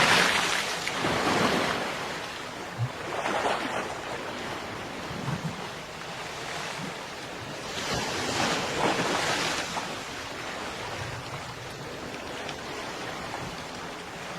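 Ocean surf: waves breaking and washing up a beach in slow surges, loudest right at the start, again at about one and a half and three and a half seconds in, and in a long swell from about eight to nine and a half seconds.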